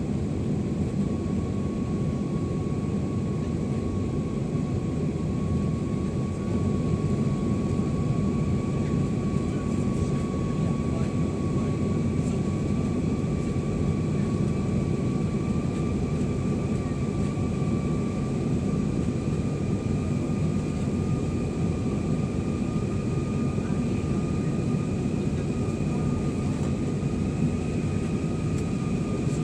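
Airbus A321's IAE V2500 jet engines heard from inside the cabin: a steady low rush with a thin whine that rises slowly in pitch, getting slightly louder about six seconds in.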